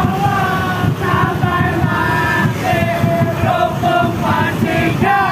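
Group of football supporters singing a chant together, over the steady low rumble of motorcycle and bus engines.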